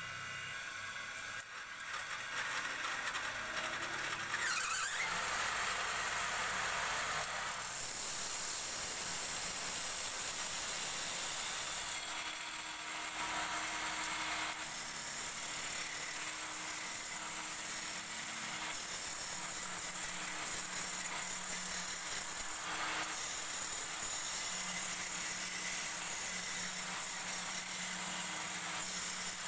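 Belt-driven wood lathe running while a hand-held turning tool cuts a spinning wooden bed leg: a steady hiss of tool on wood over the lathe's motor hum, growing louder about two seconds in.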